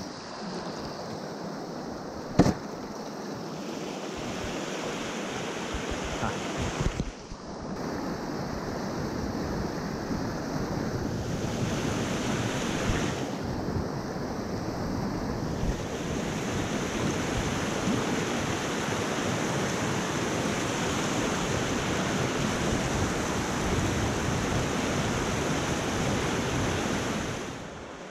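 Steady rushing of river water, mixed with wind noise on the microphone. A single sharp click comes about two and a half seconds in, and the sound fades out near the end.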